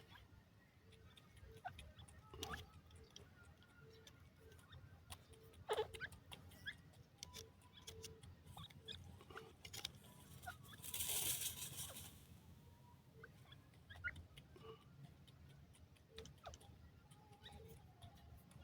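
Faint pattering and scattered soft ticks of a grey francolin chick moving about, with one brief hissing rustle lasting about a second near the middle.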